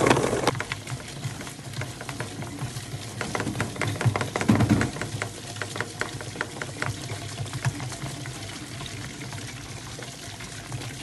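Sammic CK-38V emulsifier's blades at 300 rpm chopping whole oranges in the bowl: many quick knocks and wet splattering against the bowl and lid over a low steady hum. It is louder right at the start and again briefly a little past four seconds in.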